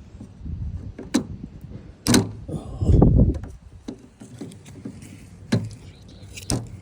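Sharp clicks and knocks from working the lock clip and pin on a Toyota Estima's sliding door handle, with a loud dull thump about three seconds in.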